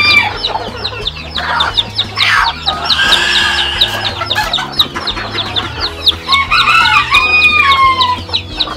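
Bantam chicks peeping rapidly and without a break, many short high chirps a second. A bantam rooster crows once, a long call from about six seconds in that falls away near the end.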